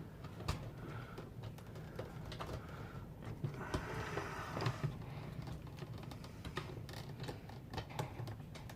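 Faint, irregular small clicks and taps of a screwdriver and a small screw being worked into the fuel pump sending unit's mounting on the gas tank, with a brief scrape about four seconds in.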